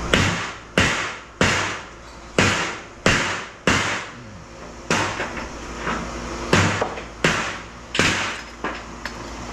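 Hammer blows on a piece of scrap metal to crack it open: about ten hard strikes at uneven intervals, each ringing briefly.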